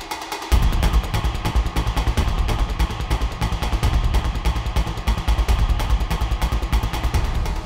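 Background film score: a deep rumbling drone that comes in about half a second in, under fast, even percussion ticks.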